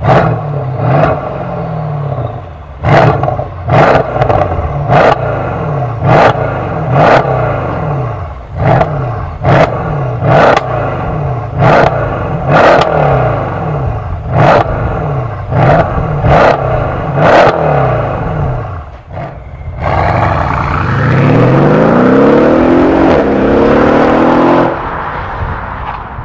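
Mercedes C217 S63 AMG Coupé's twin-turbo V8 through a MEC Design aftermarket exhaust, revved in about fifteen short blips while standing still, each blip marked by a sharp crack. It then accelerates hard from a standstill, the pitch rising, with one upshift partway through before it cuts off near the end.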